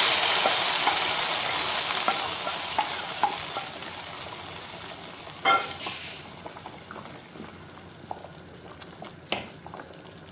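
Oil with fried onions sizzling as it is poured into the hot nihari in a pressure cooker pot, the sizzle dying away over the first few seconds. A metal clank comes about five and a half seconds in, then a wooden spoon stirs the stew with faint knocks against the pot.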